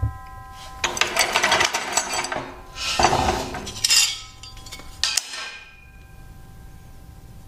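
Square metal signpost tubing scraping and clanking against the steel base and vise of a chop saw as it is slid into place and lined up under the blade, in three bouts of clatter about a second apart.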